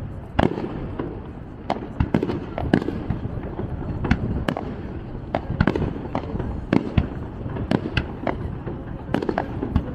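Aerial fireworks display: a steady run of sharp bangs and crackles, several a second at times, over a continuous low rumble of shells bursting.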